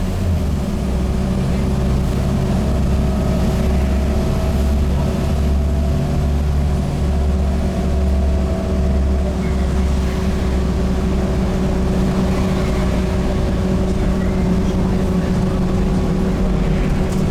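Volvo B7TL double-decker bus's six-cylinder diesel engine heard from inside the bus, running under way with a steady low drone. Its note drops about half a second in, and a faint whine sits over it for a few seconds.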